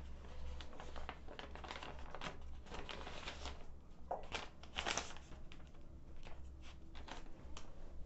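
Sheets of paper rustling and crinkling as they are handled and turned, in irregular short crackles, over a low steady hum.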